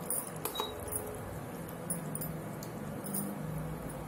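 Scattered light clinks and ticks of kitchen utensils against dishware, several short sharp strokes over a steady low hum, as paneer cubes are added to a pan of tomato gravy.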